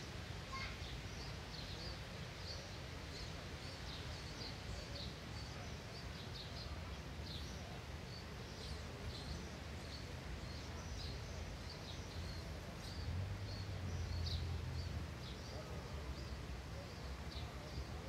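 Small birds chirping outdoors, short high chirps repeating every half second or so, over a steady low rumble that swells for a couple of seconds past the middle.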